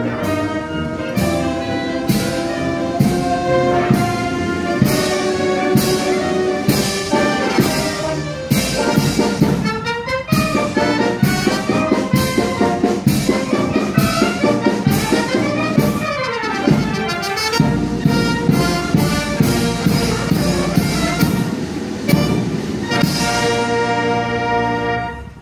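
Military brass band playing with drums, ending on a held chord near the end.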